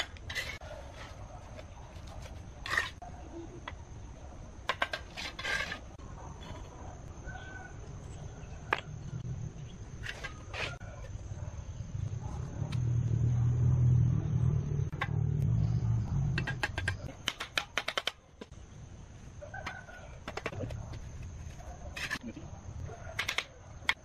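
Bricks being set by hand in wet mortar: scattered clinks and taps of brick on brick, with a low rumble for a few seconds around the middle.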